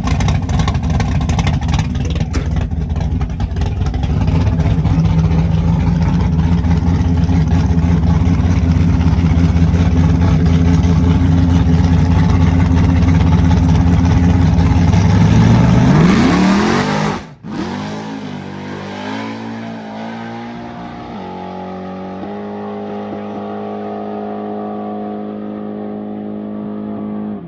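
A nitrous-equipped car's engine running loud and steady, then its pitch climbing sharply about sixteen seconds in before the sound cuts out abruptly. Afterwards it runs quieter, with its pitch changing in a few distinct steps.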